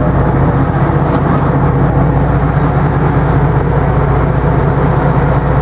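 Tugboat engine running steadily under way, a loud, even low drone heard from on board.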